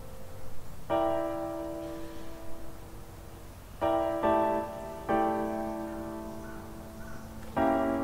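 Slow background piano music: chords struck about a second in, near four seconds, just after five, and again near the end, each left to ring and fade.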